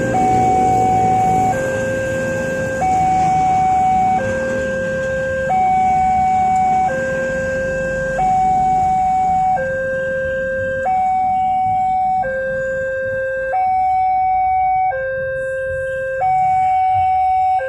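Electronic two-tone warning alarm of a railway level crossing, sounding from the loudspeaker on the signal pole: a higher and a lower tone alternate steadily, each held a little over a second, warning that a train is approaching while the barrier is down. Motorbike traffic runs underneath for the first half.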